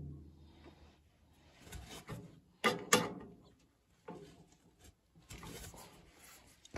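Faint handling noise: scattered rubs and clicks, with two sharper knocks close together about three seconds in and a soft rubbing a little later.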